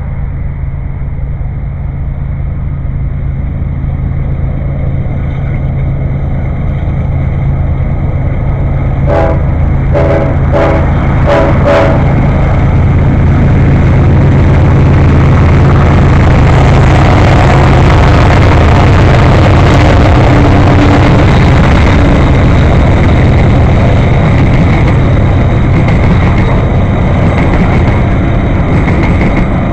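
GE AC4400CW and ES44AC diesel locomotives humming hard under load at the head of a loaded grain train as they come up and pass, the engine and rail noise building to a peak a little past halfway and then easing slightly. About nine seconds in there are four short blasts on the locomotive's K5HLL air horn.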